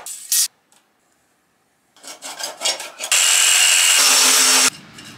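Handheld power cutter cutting through .090 sheet aluminium in one steady run of about a second and a half, which stops suddenly near the end. Before it come a few scrapes and taps on the metal sheet.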